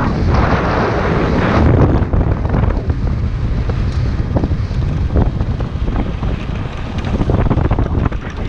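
Wind buffeting the microphone of a camera on a Hero Xpulse 200 motorcycle ridden along a gravel track, with the tyres crunching over stones and a few stones ticking now and then.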